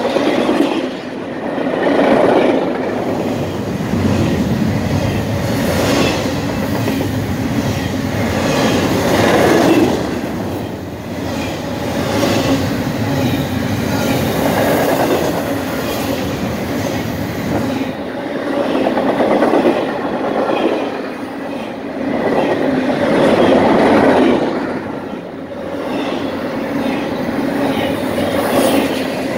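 Double-stack intermodal well cars of a freight train rolling past: a steady, loud rumble and rattle of steel wheels on the rail, swelling and easing every few seconds.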